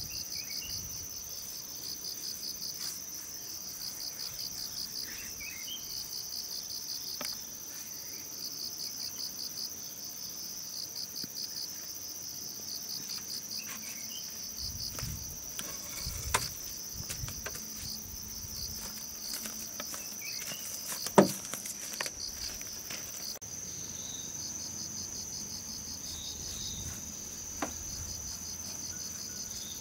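Insects chirping in rapid pulsed trains over a steady high drone, like a chorus of crickets or cicadas. A sharp knock about two-thirds of the way in is the loudest sound, with a couple of lighter clicks before and after it.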